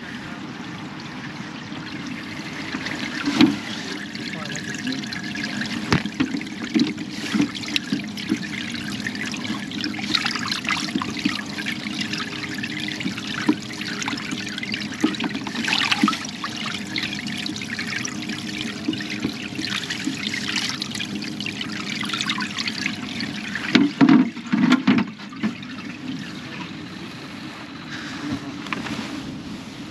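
Water trickling and sloshing in a bait cooler as a hand stirs through it after live baitfish, with small handling clicks throughout. A burst of louder knocks and splashes comes about three quarters of the way through.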